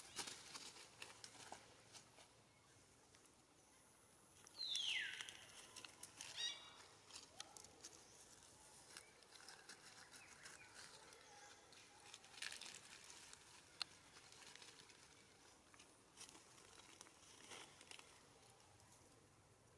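Faint rustling and crackling of grass and dry leaves as a young long-tailed macaque moves through them. One short call that falls in pitch comes about five seconds in.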